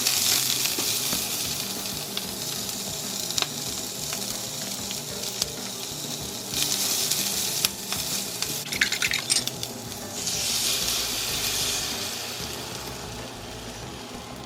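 Food sizzling as it fries in a pan, with a few light clicks. The sizzle swells louder twice, once about halfway through and again a few seconds later.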